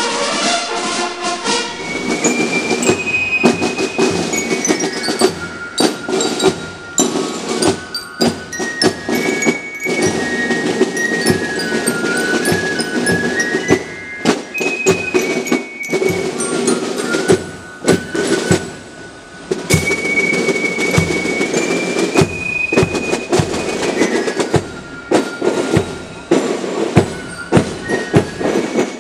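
A marching fife-and-drum corps (Tambourcorps) playing a march: a high fife melody over steady snare-drum rolls and beats. A moment of brass-band music comes before it at the very start.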